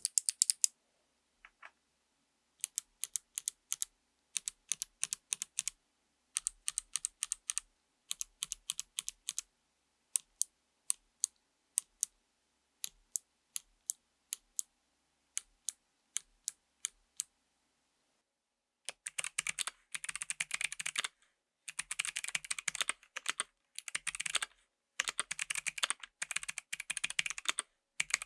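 Kailh Box Navy clicky switches (heavy spring, thick click bar) on a mechanical keyboard. First keys are pressed one at a time in short groups of sharp clicks with pauses between them; then, past the middle, fast continuous typing.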